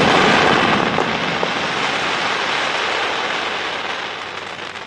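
Fireworks crackling densely at the tail of the grand finale, a continuous rain-like crackle that slowly dies away after the last heavy bangs.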